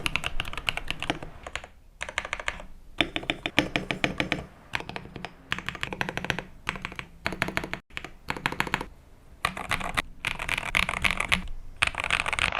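Typing on a KBD67 Lite mechanical keyboard: fast runs of keystrokes in bursts, separated by short pauses, with a momentary dropout about eight seconds in.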